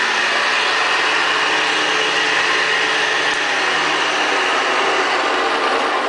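Vintage Hoover Convertible Model 66 upright vacuum cleaner running steadily, its motor and brush roll giving an even whir with a high whine.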